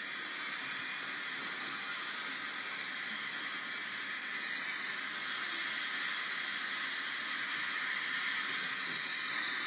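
Dental equipment hissing steadily at the patient's mouth during treatment, an even high airy hiss without breaks that grows a little louder in the second half.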